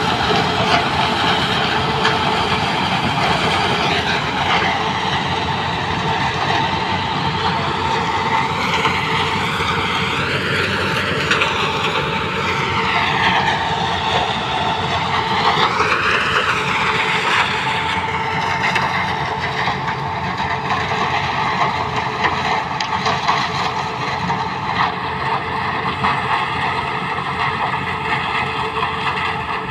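Sugarcane harvester cutting standing cane, its engine and chopper running with a loud, steady mechanical noise alongside the tractor pulling its trailer. The pitch wavers up and down for several seconds midway, then settles again.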